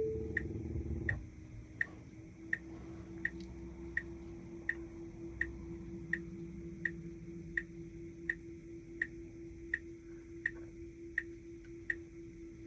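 Turn-signal indicator ticking inside a Tesla Model Y's cabin, steady and even at about one and a half ticks a second, over a steady low hum.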